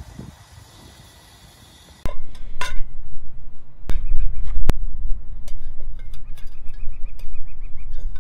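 Metal clinks, knocks and rattles of a folding stainless-steel coffee dripper being taken from its pouch, opened and set on a steel cup. They start suddenly about two seconds in, with runs of quick ticking, over a steady low rumble.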